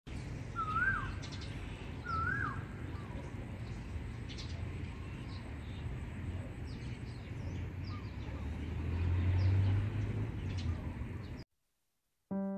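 Birds calling: two rising-and-falling whistled calls in the first few seconds and many short high chirps throughout, over a steady low rumble that swells near the end. The sound cuts off about a second before the end, and piano music begins just at the close.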